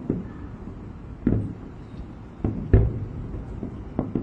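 Distant aerial fireworks bursting: a string of sharp booms with a low rumble after each, about six in four seconds, the loudest a little past the middle.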